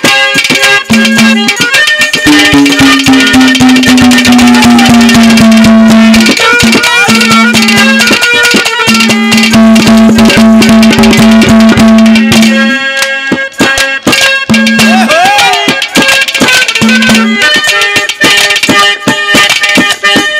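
Live Haryanvi folk band playing an instrumental passage: a hand drum keeps a fast beat under long held melody notes, one of which slides slowly down in pitch early on. The held notes drop out for a moment about 13 seconds in, leaving mostly drum strokes.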